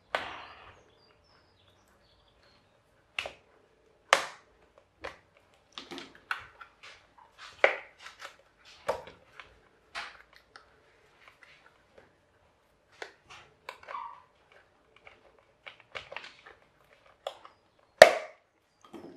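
Plastic shell of a Babyliss hair dryer being prised apart with a screwdriver: scattered clicks and cracks of plastic. The loudest crack comes near the end as the shell gives way.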